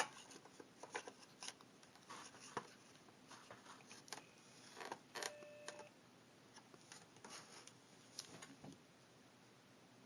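Faint scattered clicks and knocks of a power cable being plugged in and the laptop being handled, with a brief faint tone about five seconds in.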